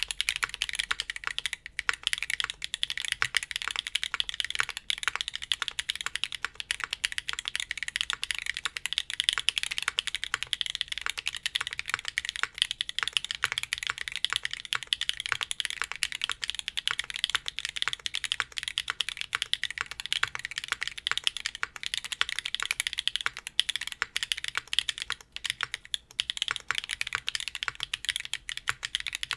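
Continuous fast typing on a Tofu TKL mechanical keyboard with Kailh Calligraphy switches on an aluminum plate: a dense stream of loud, clacky keystrokes.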